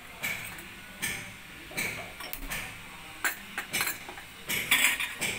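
Kitchen utensils and dishes clinking and knocking, a string of short, sharp clicks at irregular intervals, with a quicker, louder cluster near the end.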